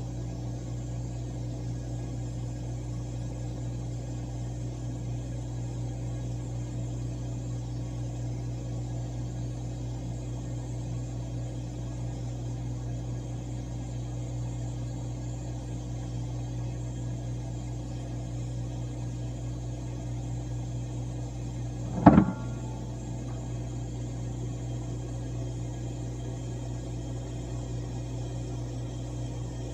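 Whirlpool ice machine's refrigeration compressor running with a steady low hum. One short, sharp knock about three quarters of the way through.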